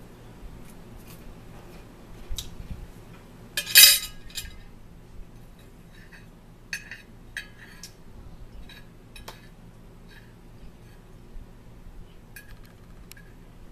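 Metal forks clinking and scraping on plates while eating: scattered short clinks, the loudest a quick cluster about four seconds in.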